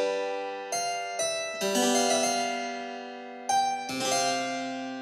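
Background music: plucked keyboard chords struck one after another, each left to ring out and fade, a quick run of them about a second in and two more about three and a half seconds in.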